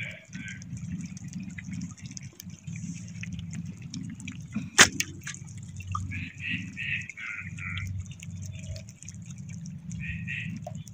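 Water dripping and splashing off a fishing net as it is hauled into a boat, with one sharp knock about five seconds in.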